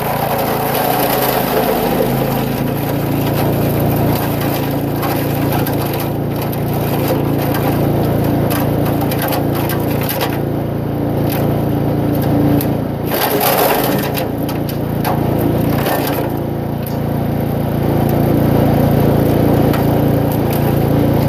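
Small 2-inch Eliet Major chipper shredder running at a steady engine pitch while branches are fed in, with irregular cracking and splintering as the wood is chipped.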